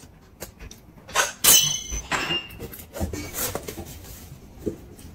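Table handling sounds: a sharp knock with a brief ringing clink about a second and a half in, as the roast chicken is set down on its plate, then soft paper rustling as a tissue is rubbed over greasy hands.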